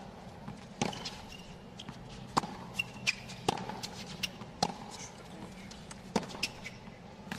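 Tennis rally on a hard court: sharp racquet hits on the ball and its bounces, one pop about every second to second and a half.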